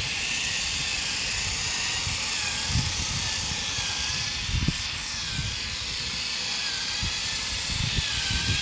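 Steady hissing whine of a small electric motor, its pitch wavering slightly up and down, with a few soft low knocks.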